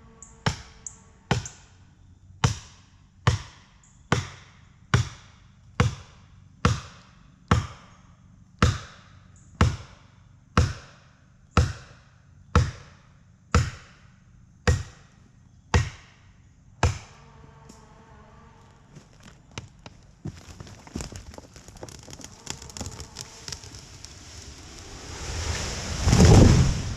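About eighteen heavy strikes on the tree, one a second, each ringing briefly. Then the wood crackles and snaps as the trunk gives, and near the end the tree crashes to the ground.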